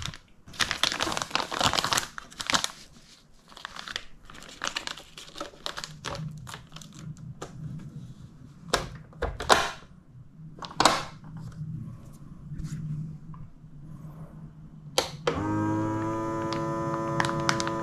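Plastic vacuum-sealer bag crinkling as it is handled and laid into a Bonsenkitchen vacuum sealer, with a few sharp clicks as the sealer's lid is pressed down and latched. About two seconds from the end the sealer's vacuum pump starts with a steady, loud droning hum as it begins drawing air out of the bag.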